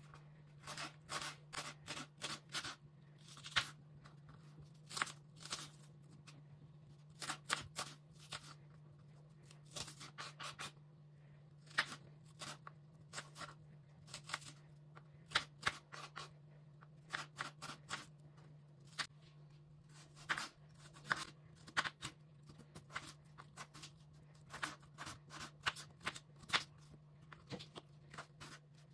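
Knife slicing through onion, then peeled raw potato, on a wooden cutting board: uneven runs of short, sharp knocks as the blade meets the board, with short pauses between runs.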